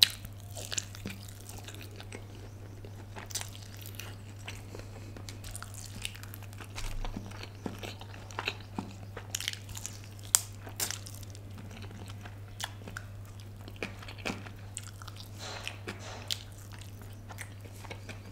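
Close-miked eating of a KFC Smokey Red chicken piece: irregular bites, crunches and chewing, with a low steady hum underneath.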